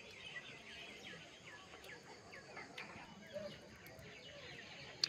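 Birds chirping faintly over outdoor background noise, a run of short falling calls repeated a few times a second in the first half. A single sharp click near the end.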